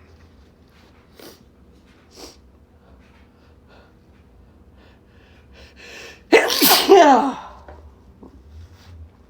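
One loud, forceful man's sneeze about six seconds in, its cry falling in pitch, after a few seconds of faint breathing sounds. It is a sneeze induced by Chhinkni sneezing powder snuffed into both nostrils.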